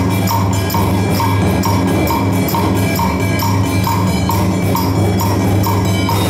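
Traditional Vietnamese percussion ensemble music: a wood block knocks a steady beat about twice a second over sustained low tones, with drums and other percussion.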